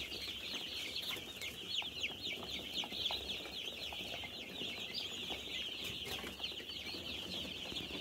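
A large flock of five-day-old broiler chicks peeping continuously, many short, high, falling peeps overlapping into a constant chorus.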